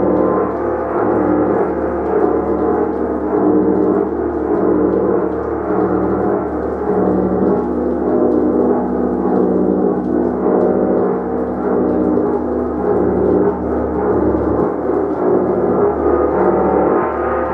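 Gong played continuously: a sustained wash of many overlapping ringing tones at a steady loudness, with a low hum that pulses in and out about once a second.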